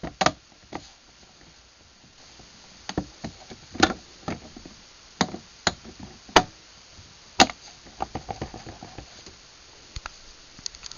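Scattered knocks and clicks of handling: a plastic garage door opener light cover being worked shut and the camera being moved and set down. The sharpest knocks come about six and seven seconds in, followed by a run of small clicks.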